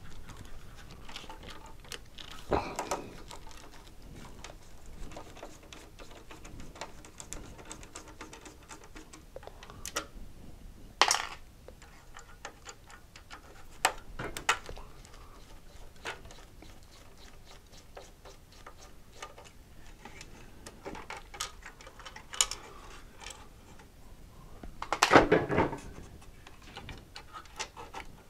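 Small metallic clicks and taps of a screwdriver and screws being worked loose inside a Tektronix 468 oscilloscope's metal chassis. There are two louder clattering knocks, a short one before halfway and a longer one near the end.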